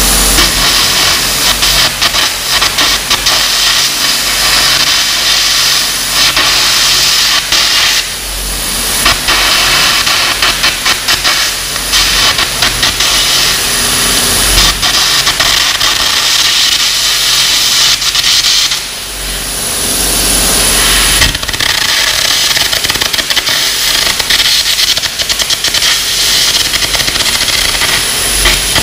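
Air carbon arc gouging: the arc and the compressed-air jet make a loud, continuous crackling hiss as welded-on metal is blown off a steel bolt, over a low hum from the welder. The hiss drops out briefly about eight seconds in and again around nineteen to twenty-one seconds in, as the arc is broken between passes.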